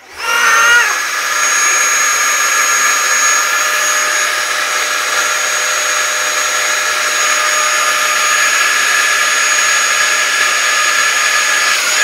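Dyson vacuum cleaner switched on, its motor spinning up with a whine that rises in the first half second, then running steadily: a constant high whine with lower hum tones over an even rushing hiss.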